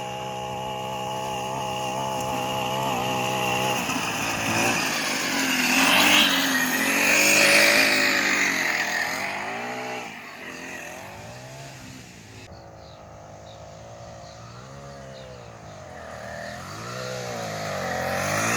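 Small gas engine of a kart being ridden around a dirt track. The note is steady for the first few seconds, then rises and falls as the kart passes close and pulls away. The pitch swings up and down through the corners while the kart is farther off, and the engine grows louder again near the end as it comes back.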